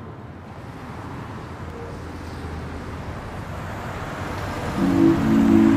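Street traffic noise swelling gradually louder. About five seconds in, a loud sustained low chord of music comes in over it.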